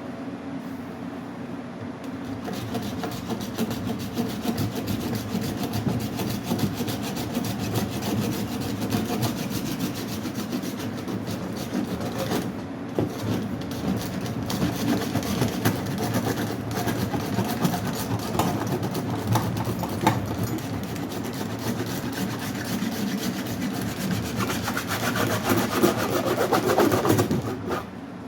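A pocket plane, a small rasp-type hand plane, shaving and smoothing a surface in steady back-and-forth strokes. It grows louder near the end, then stops.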